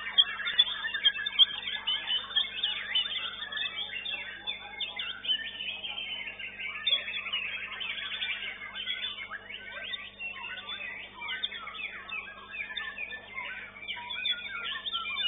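Several caged songbirds singing at once: a dense, unbroken mix of fast chirps, whistles and trills from many birds, over a faint steady hum.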